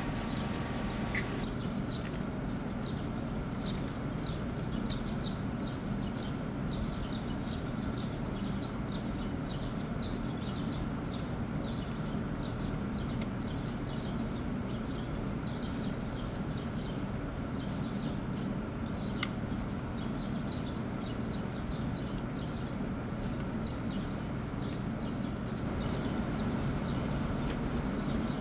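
Laying-hen house ambience: a steady low mechanical hum, with many short high chirps and calls from the birds repeating throughout.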